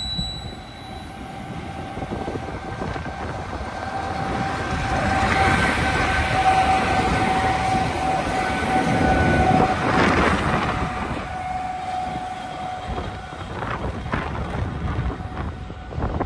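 Two SNCF BB 25500-series electric locomotives coupled in double traction passing close by: a rumble of wheels and running gear that swells twice as they go by, with a steady whine over most of it. A few sharp clicks of wheels over rail joints come near the end.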